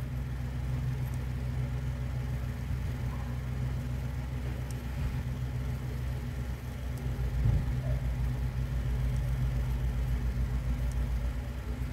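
Steady low mechanical hum, made of several low tones held throughout, with a brief swell about seven and a half seconds in.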